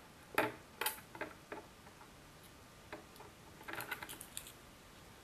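Faint scattered clicks and ticks of a Swiss Army knife's screwdriver bit turning the Phillips screws in an iMac G4's aluminium base plate. A few clicks come in the first second and a half, and a quick run of them about four seconds in.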